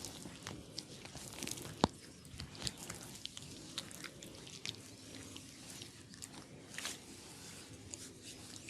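Massage sounds of hands working over a person's head and body: dense crackling and scattered clicks, with one sharp crack about two seconds in.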